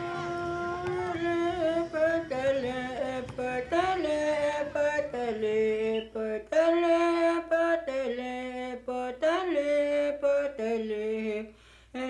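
A woman singing a slow melody of held notes that step up and down, in short phrases with breaks between them.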